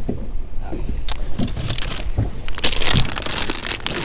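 A clear plastic tackle bag crinkling as it is handled, loudest about two and a half to three and a half seconds in, over a low rumble of wind on the microphone.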